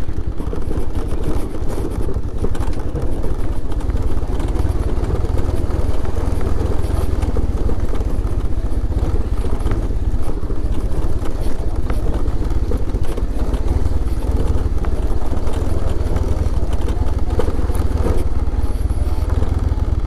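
Bajaj Pulsar 150 motorcycle's single-cylinder engine running steadily under a rider on a rough off-road track, a continuous loud low rumble with no change in pace.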